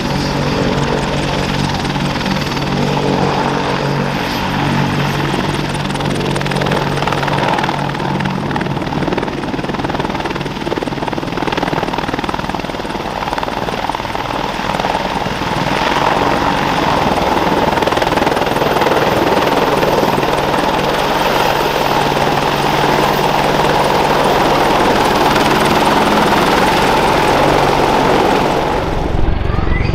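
Boeing AH-64D Apache helicopter, with its two General Electric T700-GE-701C turboshaft engines and main rotor at take-off power, lifting off and climbing away in a loud, steady turbine-and-rotor din. The sound grows louder about halfway through as it leaves the ground. Near the end it changes abruptly to a duller, bassier rumble.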